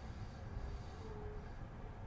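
Low, steady rumble inside the Green car of a JR East E235 series 1000 electric train, with a faint brief hum near the middle.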